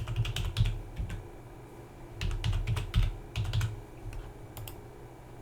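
Typing on a computer keyboard in quick bursts of keystrokes: one burst in the first second, another from about two to nearly four seconds in, and a couple of stray key clicks near the end.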